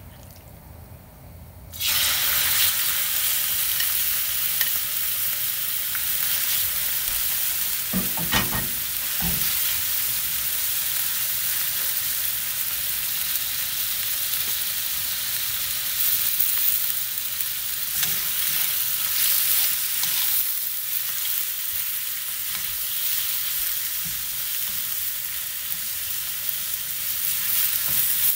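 Sliced beef hitting hot oil in a stainless steel skillet: a loud sizzle starts suddenly about two seconds in and keeps going steadily as the beef and onions stir-fry. A few knocks sound about a third of the way in.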